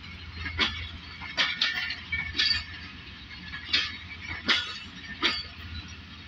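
Passenger train coaches rolling slowly past, a low rumble under sharp metallic wheel clicks about once a second, some in quick pairs, as the wheels pass over rail joints.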